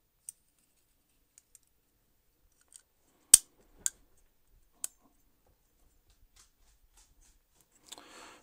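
Small clicks and taps from a Spyderco Para Military 2 folding knife being reassembled by hand. There is one sharp metallic click a little over three seconds in, then two softer clicks over the next second and a half.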